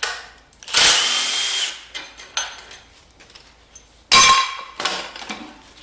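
Handheld power tool running in a burst of about a second with a steady whine, backing bolts out of a 5.3 L LS engine during teardown. About four seconds in comes a sharp metallic clank that rings briefly.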